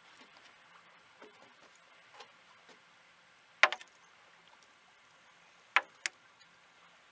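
Sharp clicks and light knocks from fishing rods and reels being handled: one loud click about three and a half seconds in with a few smaller ones after it, then two more close together near six seconds, over faint background hiss.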